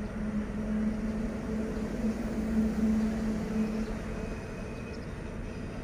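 Distant D19E diesel-electric locomotive running as it approaches, a steady engine hum that fades about four seconds in.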